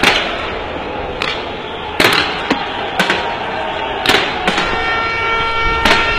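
Sharp explosive bangs, about seven at irregular intervals, over a continuous crowd din. A steady multi-pitched tone sets in about halfway through.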